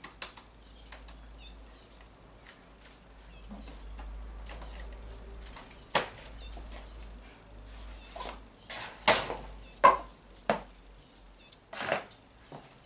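Handling of a large RC car: a run of light clicks and knocks of plastic and metal parts, with a few sharper knocks about six seconds in and near the end.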